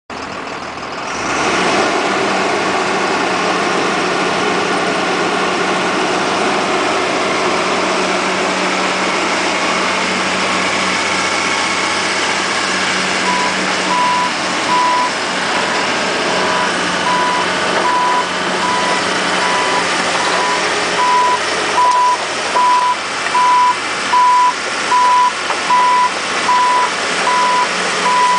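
Caterpillar 325L hydraulic excavator's diesel engine running steadily, coming up louder about a second in. From about halfway through, a warning alarm beeps about one and a half times a second.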